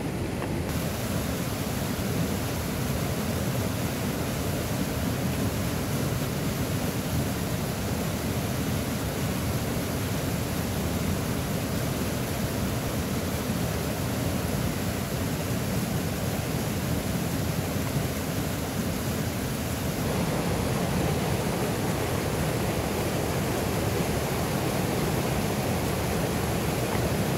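A small mountain river rushing steadily, an even sound of flowing water with no breaks. It grows slightly fuller about two-thirds of the way through.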